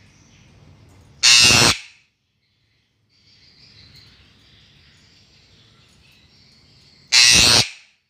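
Female Eclectus parrot giving two loud, harsh screeches, each about half a second long, the first about a second in and the second near the end.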